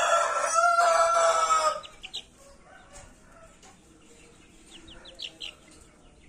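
A rooster crowing: one long, loud pitched call with a brief break that ends about two seconds in. After it come a few faint, short high peeps, from a chick.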